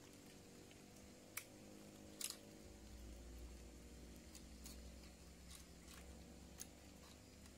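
Faint, quiet handling of a wooden stick shelter frame while a crosspole is lashed to an upright: a few sharp clicks and ticks of wood and cord, the loudest a quick double click a little over two seconds in, with a low rumble through the second half.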